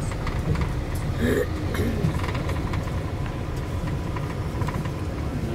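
Steady low rumble of vehicle engines running, with a faint steady whine above it.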